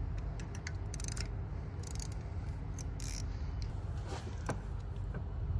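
Ratchet with a 12 mm deep socket loosening and winding out a diesel glow plug: short bursts of ratchet clicking, three times at about one-second intervals, with scattered single metal clicks.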